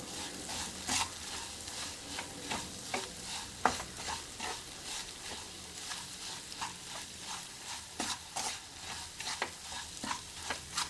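Wooden spatula stirring and scraping coarse, grainy moong dal and khoya roasting in ghee in a nonstick pan: irregular scrapes over a light frying sizzle. The crunchy sound while stirring is the sign that the dal is well roasted.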